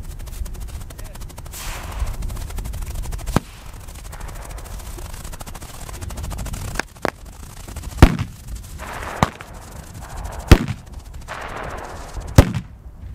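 Fireworks going off: a fast, machine-gun-like crackle of small reports, then a string of sharp single bangs, the loudest about ten and a half seconds in.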